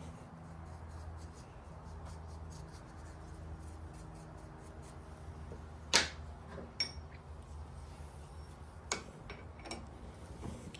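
A low steady hum that fades after about four seconds, then a few sharp clicks and knocks, the loudest about six seconds in.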